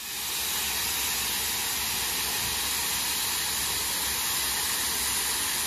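Steady hiss of steam escaping from a steam locomotive.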